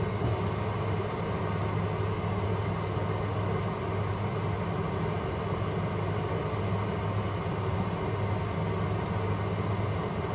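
Steady low hum of a kitchen fan running, unchanging throughout, with no distinct knocks or scrapes from the pan.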